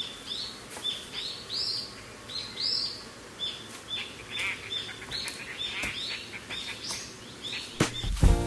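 Small birds chirping, short high calls repeated about twice a second.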